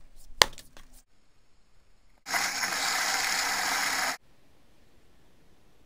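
A single sharp chop of an axe into firewood about half a second in. About two seconds in, a steady hissing noise starts; it lasts about two seconds and cuts off abruptly.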